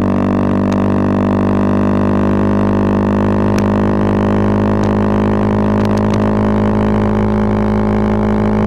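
Bajaj Pulsar 220F's single-cylinder engine through a Race Concepts full-system exhaust, held at a steady road speed, its note creeping slightly higher. A few faint clicks sound over the drone.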